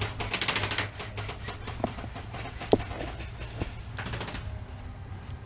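Gas-blowback airsoft SMG, a Tokyo Marui MP7, firing a rapid burst of clacking shots at about a dozen a second. A single shot follows near the middle, and another short burst comes about four seconds in, over a low steady hum.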